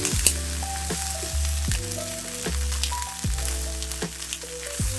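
Filet mignon steaks searing in oil in a nonstick frying pan with rosemary, thyme and garlic, a steady sizzle with fine crackles of spatter as tongs turn the meat. Background music with deep bass notes and a steady beat plays under it.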